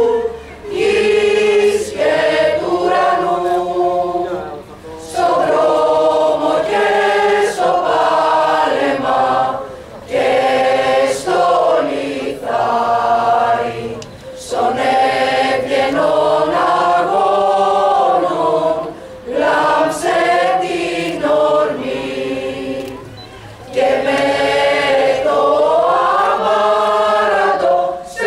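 Mixed choir of women's and men's voices singing together, in phrases of a few seconds each with short breaks between them.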